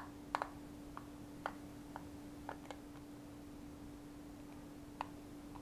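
Small screwdriver clicking and scraping against the tiny screws and the plastic casing inside a Powerball, in faint, irregular ticks, most of them in the first few seconds. A steady low hum runs underneath.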